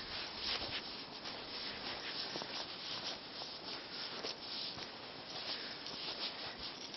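Footsteps crunching and scuffing through snow, a steady run of small crackly steps with no pauses.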